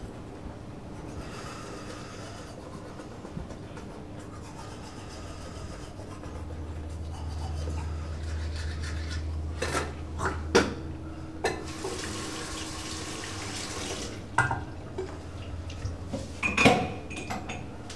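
Faint toothbrush scrubbing at first. A few seconds later a low rumble starts and runs for about four seconds. Then come sharp clicks and knocks, and a washbasin tap runs briefly with a hiss of water about twelve seconds in.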